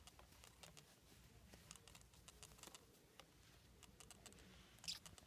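Near silence, with faint scattered clicks and rustles of hands handling a cotton sock and a rubber band around a plastic water bottle, and one slightly louder brief sound near the end.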